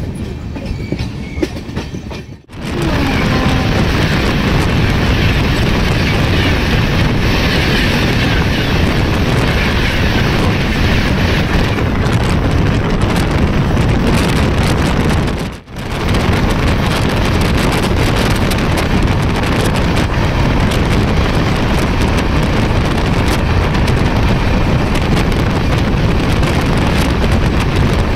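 Express passenger train running at speed: a steady loud rush of the train on the move, which drops out sharply twice, about two and a half seconds in and about halfway through.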